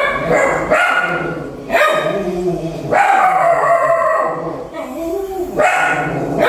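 Several dogs howling and barking, a string of drawn-out calls one after another.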